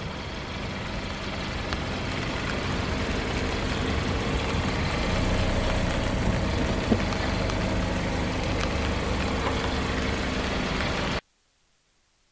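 Car engine running steadily, with one sharp click about seven seconds in; the sound cuts off abruptly near the end.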